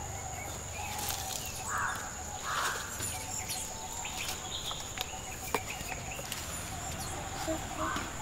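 Outdoor ambience: a steady high-pitched insect drone, with short bird calls twice about two seconds in and again near the end, and a few faint clicks.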